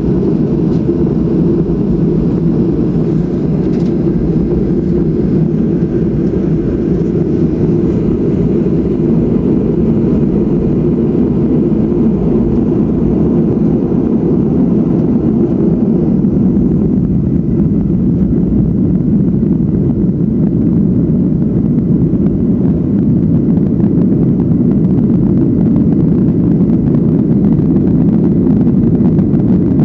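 Boeing 737-700's jet engines at low taxi power, heard from inside the cabin as a steady low drone with airframe rumble while the plane taxis.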